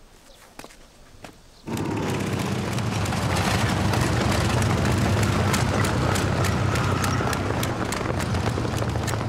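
A motorcycle engine running with the dense, rapid footfalls of a column of soldiers running in boots, starting suddenly a little under two seconds in.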